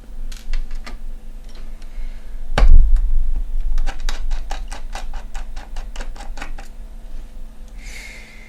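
A single knock, then a quick run of small, evenly spaced clicks, about four a second, from a small screwdriver working the backplate screws of a graphics card.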